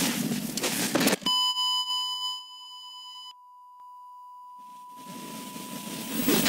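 Rough handheld rustling noise for about a second, then a sudden steady electronic tone: buzzy with overtones for about two seconds, then a thin, quieter pure beep held for about three seconds while rustling fades back in, typical of a camcorder signal glitch.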